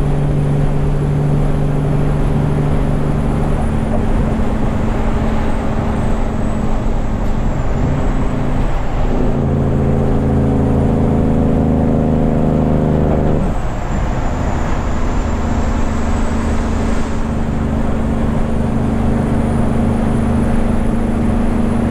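Semi truck's diesel engine running steadily at road speed with tyre and road noise, heard from inside the cab. The engine note changes for a few seconds about nine seconds in, then settles back.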